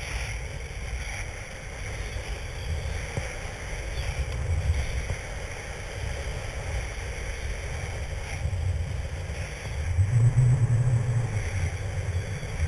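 Wind rumbling on a GoPro Hero2 camera microphone during a snowboard run down a groomed piste, over the hiss of the board sliding on packed snow. The rumble swells louder about ten seconds in.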